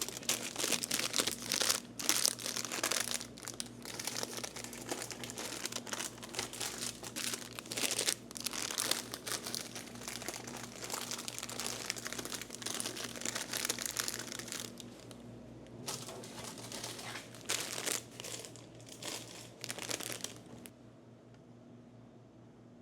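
Plastic snack bags crinkling and rustling as they are handled, in irregular spells with short pauses, over a steady low hum.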